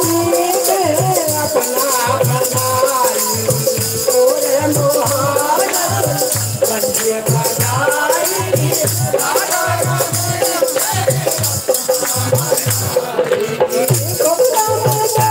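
Pahadi devotional bhajan: harmonium with a voice singing, over a steady low beat of about two thuds a second and continuous jingling, rattling percussion.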